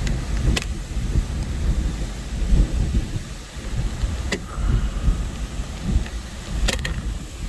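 Hurricane wind gusting, buffeting the microphone with a heavy rumble that rises and falls, with a few sharp clicks.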